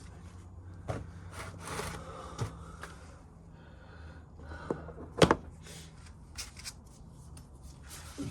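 Hand tools working on a motorcycle's oil drain plug: scattered clicks and scraping, with one sharp knock about five seconds in.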